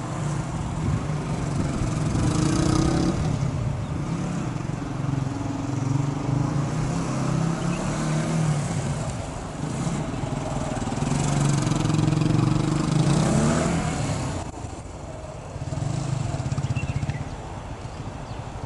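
Single-cylinder engine of a 2016 TVS Apache 180 motorcycle, heard from a distance, revving up and dropping back again and again as it accelerates and slows through a tight-turn course. The engine falls away about fourteen seconds in, then comes back for one short burst.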